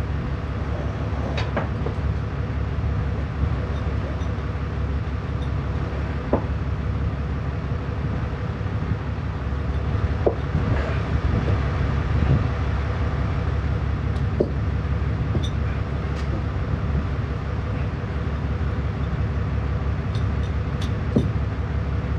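A vehicle engine idling steadily, with a few light metallic clicks now and then.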